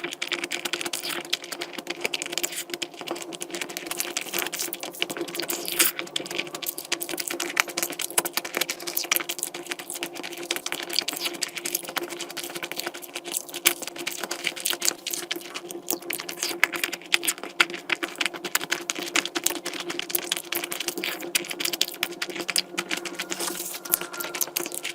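Close-miked eating: continuous chewing and crunching, a dense run of small clicks and crackles over a steady low hum.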